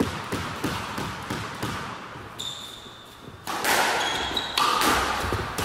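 A squash rally: the ball smacking off rackets and the court walls, with quick footsteps and rubber-soled shoes squeaking on the wooden floor. The hits are louder from about the middle on, and the squeaks come in the second half.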